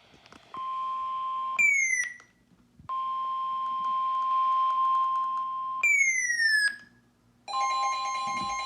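Emergency broadcast alert tones. A steady high beep-like tone sounds twice, briefly and then for about three seconds; each ends in quick falling pitch sweeps and is followed by a short silence. A steady two-tone alert chord starts near the end, typical of the Weather Radio warning tone followed by the EAS attention signal.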